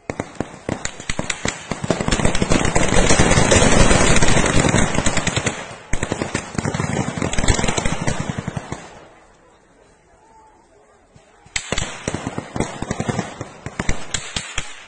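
Long rapid volleys of gunfire, a dense rattle of sharp cracks, which stops about nine seconds in and starts again a couple of seconds later.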